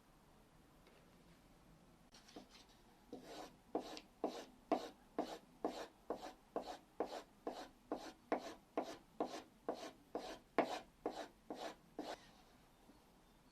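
Woodworking hand-tool blade sharpened in quick, even back-and-forth scraping strokes, about two a second. The strokes start about two seconds in and stop about a second and a half before the end.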